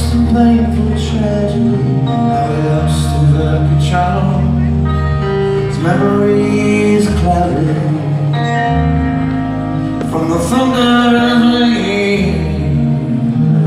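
Live rock band playing a song, with guitars, bass and drums, recorded from far back in a theatre audience.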